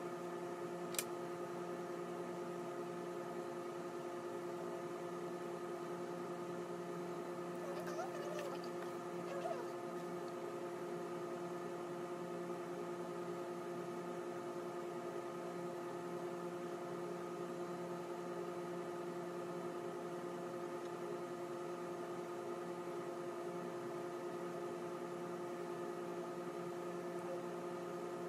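A steady hum made of several fixed tones that does not change, with a single sharp click about a second in and a few faint small sounds around eight to ten seconds in.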